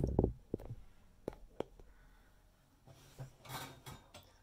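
Camera being handled and moved closer: a loud knock at the start, then a few sharp clicks, a quiet stretch, and a couple of soft rustles near the end.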